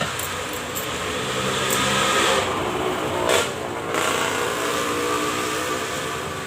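Motorcycle under way on the road: engine running with a changing pitch under steady wind and road rush, with a brief louder rush about three seconds in.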